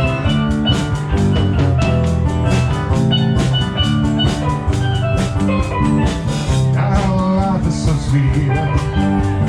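A live band plays an instrumental passage with steel drums carrying the melody over a drum kit beat, guitar and bass guitar.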